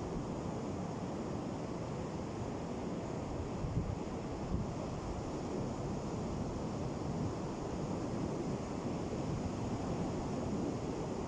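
Ocean surf washing steadily on a beach, with wind buffeting the microphone.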